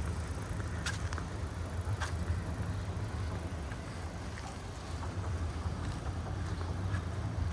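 Outdoor ambience: a steady low rumble with a few light clicks, a sharp one about a second in and another about two seconds in.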